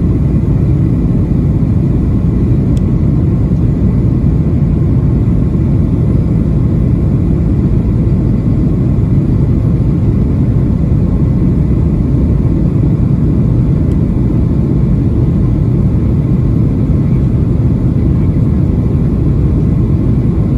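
Steady low roar inside the cabin of a Boeing 737-800 in flight, from its CFM56-7B engines and the air rushing past the fuselage.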